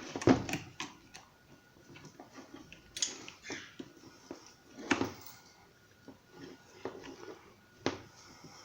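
Phillips screwdriver driving a screw into a ceiling fan's metal lamp socket: scattered small clicks and taps of the tool and parts being handled, with a few sharper knocks about three, five and eight seconds in.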